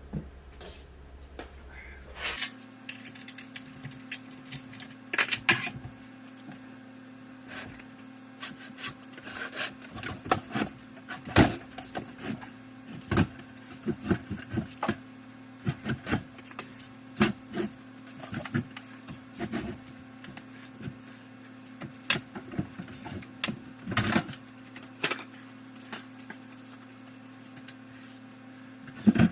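Irregular knocks, clunks and scraping as the heavy Grizzly M1018 mill/lathe combo is worked and shifted by hand, over a steady hum that starts about two seconds in.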